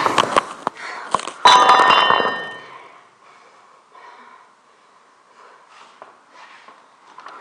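A hand-held camera being grabbed and knocked about: a run of knocks and clatters, one of them about 1.5 s in ringing briefly like a bell. It then lies still, with only faint scattered small sounds.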